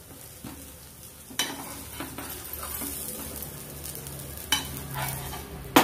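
Vegetable pancake sizzling in oil on a hot tawa, with a slotted stainless steel spatula scraping and knocking against the pan several times as the underside is checked before flipping. The sharpest knocks come about a second and a half in, about four and a half seconds in, and right at the end.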